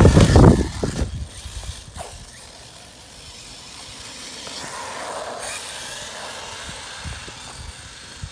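Arrma Typhon 6S 1/8-scale RC buggy running on a 4S LiPo: its brushless motor and drivetrain whir loudly as it passes close, then fade within about a second as it drives away, staying faint after that.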